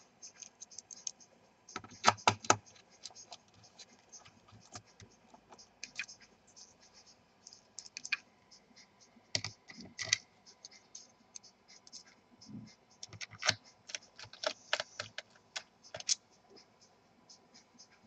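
Small hand screwdriver driving screws back into an Asus VivoBook N580V's aluminium bottom cover: scattered clicks and taps of the bit in the screw heads and against the metal panel, in quick runs near the middle and toward the end.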